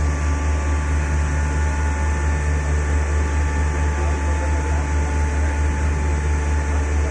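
Heavy erection machinery running: a loud, steady low drone with a few faint, steady high whining tones over it.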